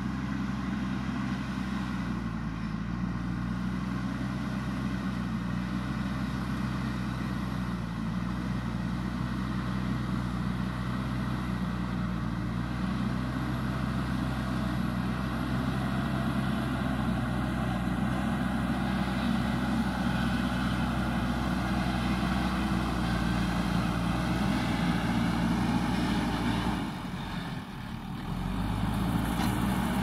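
Diesel engine of a JCB 3DX backhoe loader running steadily as the machine pushes and levels soil with its front bucket. The sound drops away briefly near the end, then comes back.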